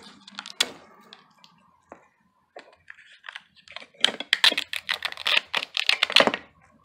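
Packaging crinkling and crackling as a small surprise-toy wrapper is handled and opened. There are a few scattered crackles at first, then a dense, rapid run of crackles about four seconds in that lasts roughly two seconds.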